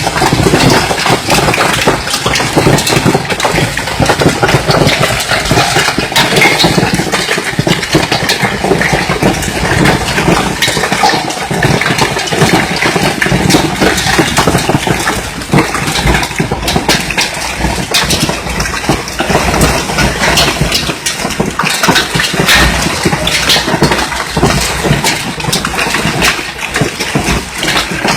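Hailstorm: hailstones and heavy rain pelting down in a loud, dense, constant clatter of countless small impacts.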